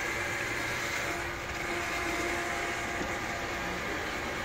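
Steady restaurant room noise: a continuous hum and hiss with a faint tone running through it partway, with no single event standing out.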